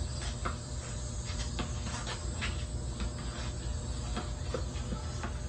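Outdoor basketball court sound: a steady hiss with scattered sharp knocks from a basketball being dribbled on the asphalt and shot at the rim.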